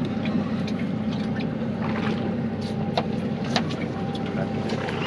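Yamaha outboard motor idling steadily, a constant low hum with a faint steady tone, with a few light clicks and taps scattered over it.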